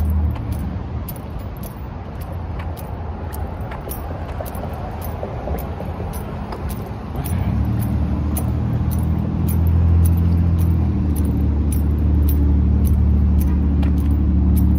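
A motor vehicle engine running nearby with a steady low hum that grows much louder about halfway through. Light clicks come about twice a second over it.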